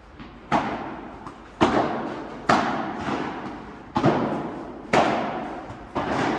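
Padel rally: the ball is struck with solid padel rackets and bounces off the court and glass, giving six sharp pops about a second apart. Each pop rings on with a long echo in the big hall.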